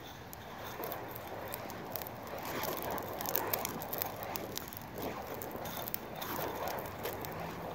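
Coal nunchucks, wire cages of burning lump charcoal on chains, being swung through the air: a rushing whoosh that swells and fades with the swings, peppered with many small sharp crackles and clicks.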